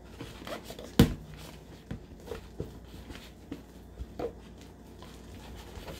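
Slime of glue, shaving cream and laundry detergent being mixed in a bowl: scattered soft clicks and sticky handling noises, with one sharp knock about a second in.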